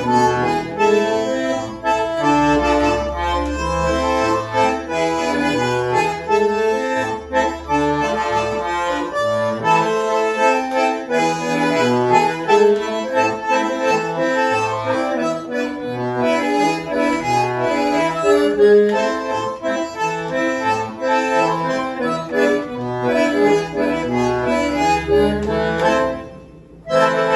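Bandoneón playing a tango medley in full chords over a recorded backing track with a low bass line. Near the end the music drops away for a moment, then closes on one short final chord.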